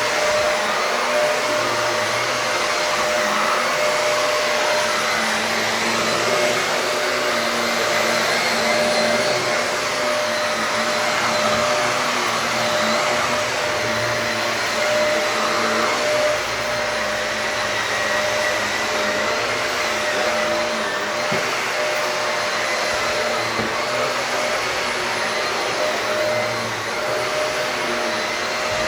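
Shark vacuum cleaner running steadily over carpet, a constant motor whine over the rush of suction, swelling a little as it is pushed back and forth.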